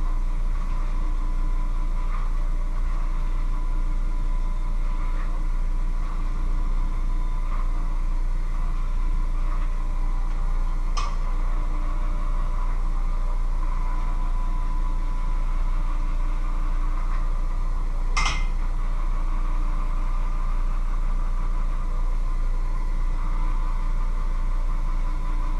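Electric hand mixer running steadily in a metal bowl, a constant motor hum, with two sharp knocks partway through.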